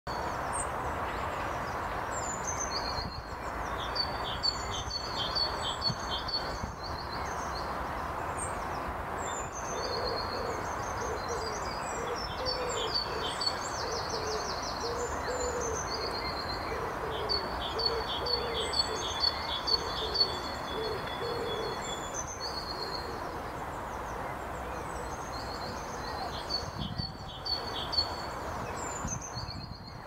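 Outdoor birdsong: high, quick chirps from small birds repeat throughout over steady background noise. From about ten to twenty seconds in, a series of low hooting notes comes about twice a second.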